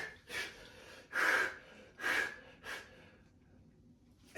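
A person breathing hard in short, noisy puffs, four breaths in the first three seconds and then quiet: out of breath after a set of chin-ups.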